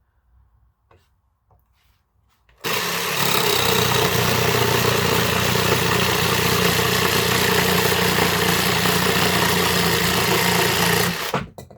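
Dewinner cordless jigsaw with a wood blade cutting through a board on pendulum orbital setting 3, where the blade moves forward on the cut stroke for a faster, rougher cut. The saw starts about two and a half seconds in, runs steadily through the cut for about eight seconds, and stops shortly before the end.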